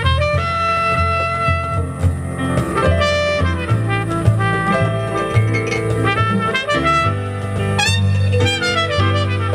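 Jazz band playing live: a trumpet leads with long held notes and a quick rising run near the end, over an upright double bass playing changing low notes.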